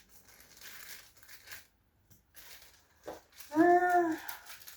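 Packaging rustling in stretches as a parcel is worked open by hand and mouth, with a woman's short hummed vocal sound, the loudest part, about three and a half seconds in.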